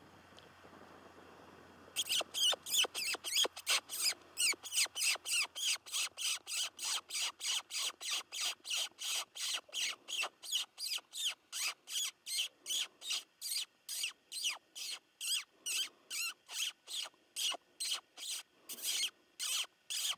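Predator call sounding rapid, high mouse squeaks, about two to three a second, starting about two seconds in: a mouse-in-distress squeak used to lure a coyote in close.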